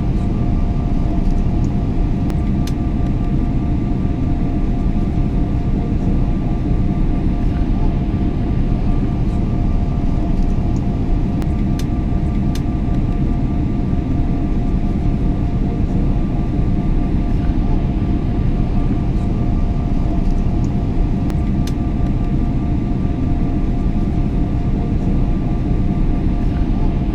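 Airplane cabin noise in flight: a steady, unchanging low rumble with two faint steady tones running through it, and a few faint ticks.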